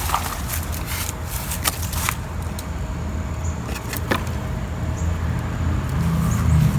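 Low steady rumble under several sharp clicks and light rattles, as the string trimmer's line head is handled. The rumble grows louder near the end.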